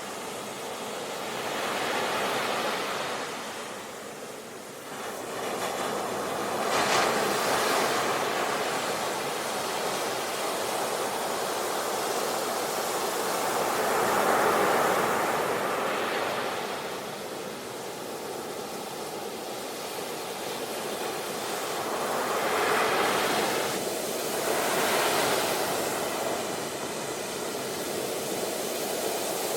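Ocean waves breaking and washing on the shore, a steady rush that swells and eases every few seconds.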